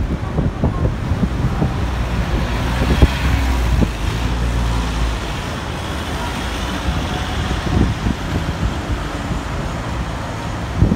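Street traffic passing close by: cars and a pickup truck driving past, a steady rumble of engines and tyres that swells for a few seconds as the nearer vehicles go by.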